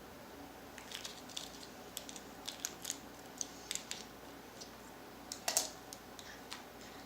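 Irregular small clicks and crinkles of objects being handled close to the microphone, the loudest about five and a half seconds in.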